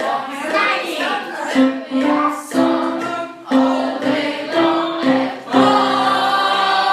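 Voices singing a tune in a series of short notes, ending on a long held note about five and a half seconds in.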